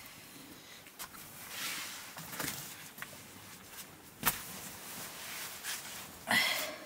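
Quiet room sound with a few sharp clicks and soft rustles from someone moving on a dirt floor beside a small twig fire, with one louder knock about four seconds in.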